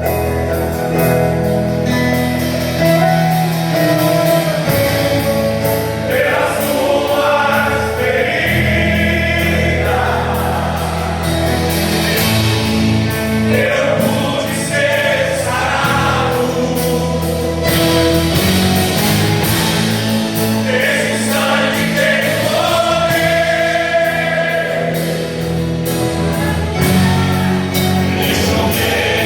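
Gospel worship song in Portuguese: voices singing over band accompaniment, with sustained instrumental tones underneath.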